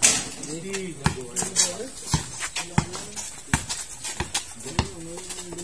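Basketball bouncing on a court in sharp, irregular knocks during play, with voices of people talking in the background.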